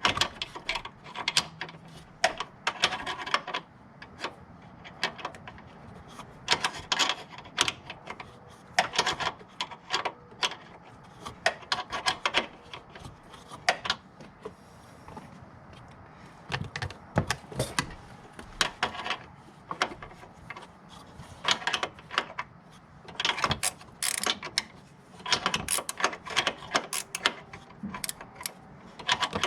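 Ratchet wrench clicking in short, irregular runs with pauses between them.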